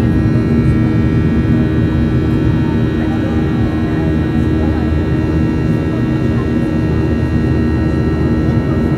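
Cabin noise of a Boeing 737-800 climbing after takeoff, heard from a window seat beside the engine: the steady drone of its CFM56-7B turbofan, a deep rumble with several steady whining tones above it.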